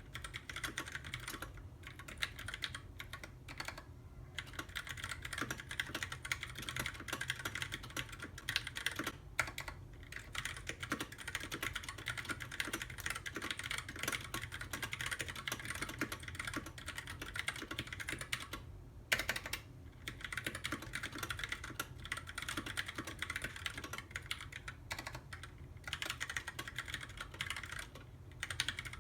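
Rapid continuous typing on a custom 66% mechanical keyboard, dense key clicks with a few short pauses, over a steady low hum.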